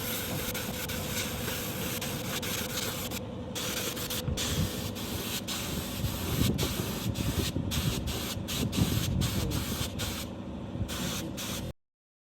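Compressed-air paint spray gun hissing as car body paint is sprayed, the spray stopping for a moment many times as the trigger is released, over a steady hum. The sound cuts off abruptly near the end.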